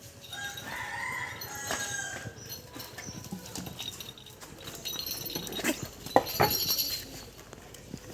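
Chickens clucking and calling in short bent notes, with a few sharp knocks and rustles a few seconds in.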